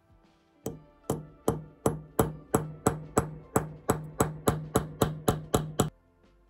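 Small hammer tapping a pin punch against a fountain pen part on a metal bench block: a steady series of about seventeen sharp metal strikes, roughly three a second and a little quicker toward the end, each ringing briefly. The strikes drive a part out of the pen.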